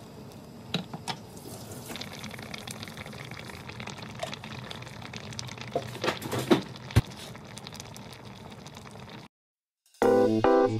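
Doenjang jjigae simmering and bubbling in a pot, with a few light knocks and plops as tofu and chili flakes go in. The sound cuts out briefly near the end and piano music starts in the last second.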